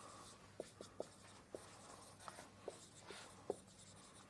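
Dry-erase marker squeaking on a whiteboard as words are written: a string of short, faint squeaks at irregular intervals.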